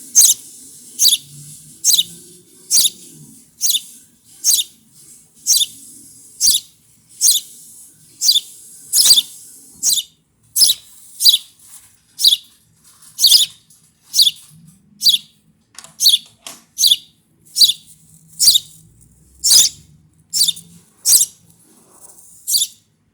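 Baby birds giving shrill begging calls, short loud high-pitched chirps repeated a little more than once a second: chicks used to being fed by hand, still calling for food rather than picking it up themselves.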